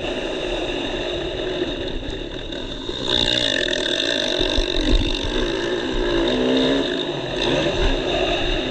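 Motocross dirt bike engine heard from the rider's helmet camera, revving up and down as the throttle opens and closes over a rough track, with its pitch climbing about three seconds in and again near the end.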